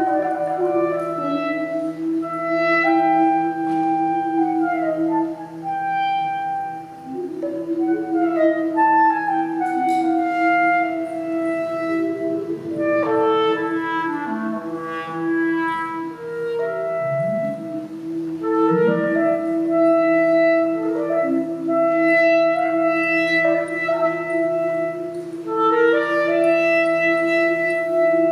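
Clarinet playing free, improvised melodic phrases that step and slide between notes, over a steady low drone from live electronics. A couple of low rising sweeps come in just past the middle.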